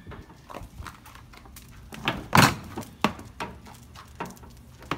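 A run of irregular knocks and clunks from gear being handled and moved, with one much louder thump about two and a half seconds in.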